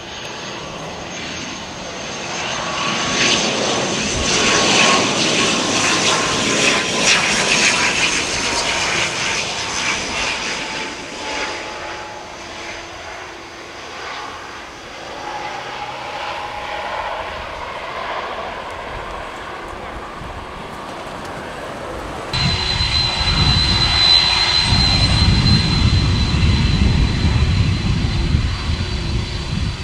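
Twin-turboprop ATR airliner landing and rolling out: engine and propeller noise with a slowly falling whine, loudest a few seconds in, then fading. About three-quarters of the way through it cuts abruptly to a Boeing 767 freighter's jet engines taxiing close by, a deep rumble under a steady high whine.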